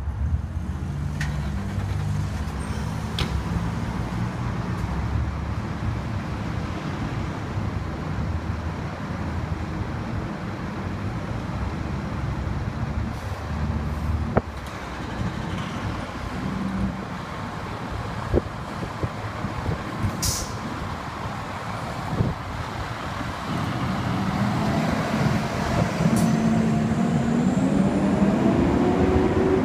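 Emergency vehicle engines running at a fire station as the apparatus responds, a steady heavy low rumble. A short sharp air-brake hiss comes about two-thirds of the way through. Near the end a rising tone sets in as the ambulance pulls out of its bay.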